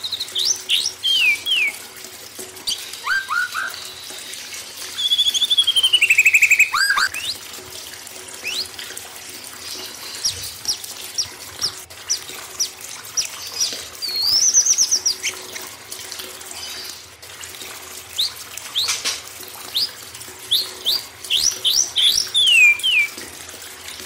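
Songbirds calling over a steady sound of running water: quick sharp whistled sweeps scattered throughout, a long descending trill about five seconds in that is the loudest part, and a warbling rising trill around the middle.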